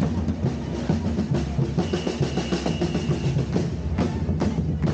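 Street drum group pounding out a fast, steady beat. A high steady whistle rises above it for about a second and a half in the middle, and a few sharp bangs come near the end.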